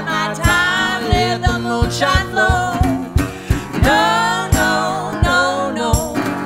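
A woman and a man singing a country song together in full voice, over an acoustic guitar strummed to a steady beat of about three strokes every two seconds.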